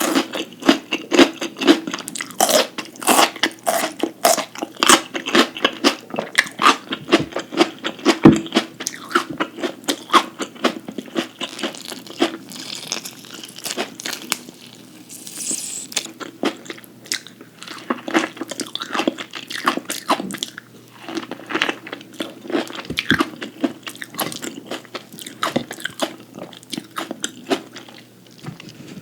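Close-miked eating: a person biting and chewing crisp food, many sharp crunches in quick succession, thinning out around the middle to a soft hissy rustle before the chewing picks up again.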